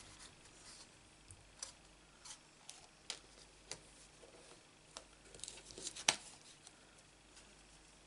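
Faint, scattered clicks and taps of a thin metal cutting die and cardstock being handled and set down on a plastic cutting plate, with a small cluster of clicks and one sharper click about six seconds in.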